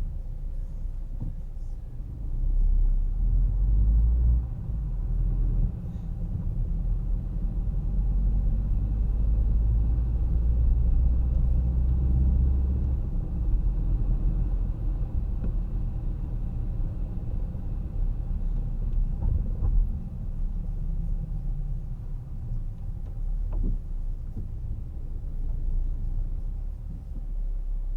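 Car driving on a city street: a steady low rumble of engine and tyres that swells in stretches as it speeds up.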